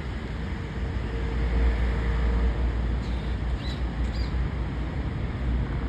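A few short bird chirps about three to four seconds in, over a steady low rumble and hiss.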